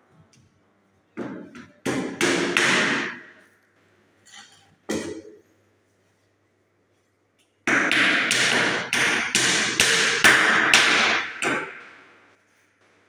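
Hammer nailing together the wooden panels of a kitchen cabinet box: a few scattered strikes, then a steady run of about a dozen blows, roughly three a second, for about four seconds.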